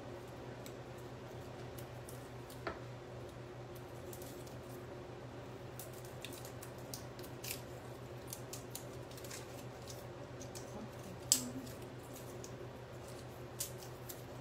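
Faint scattered clicks and taps of garlic cloves being broken from the bulb and handled on a kitchen counter, over a steady low hum; one sharper knock about eleven seconds in.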